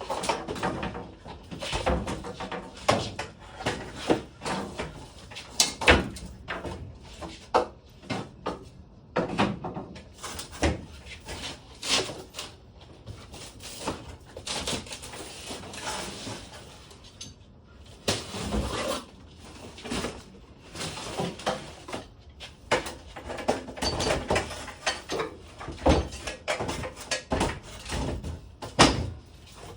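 Irregular metal clanks, clicks and knocks of hand tools and garage door hardware being handled, with some scraping in between.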